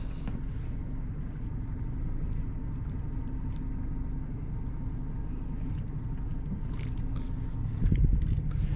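Small boat's motor running steadily at low speed: a low rumble with a faint steady hum. A louder low bump comes near the end.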